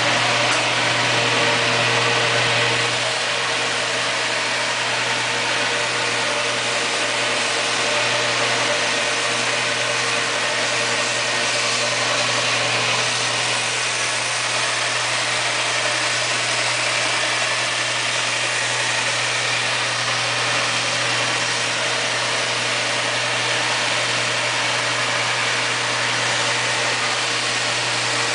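A power-fed sander running steadily with a constant motor hum and a broad abrasive hiss as a laminated red birch ring is fed through it and sanded. The sound eases slightly about three seconds in, then holds steady.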